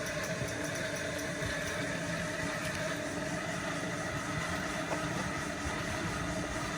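A steady mechanical hum with several constant tones, unchanging in level.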